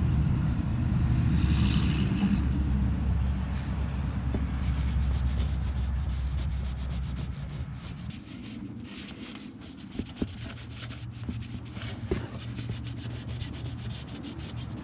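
Sanding on the sheet metal of a vintage Snap-on toolbox: quick rubbing strokes from about four seconds in, over a low hum that dies away about eight seconds in.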